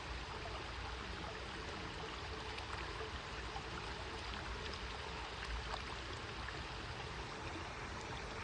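A stream running steadily, an even rush of flowing water.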